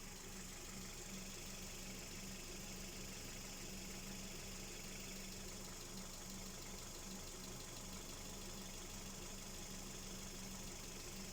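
Hyundai Solaris G4FC 1.6-litre four-cylinder engine idling hot, with a fast, even ticking clatter over the steady running. This knock appears only when the engine is warm and comes and goes by itself.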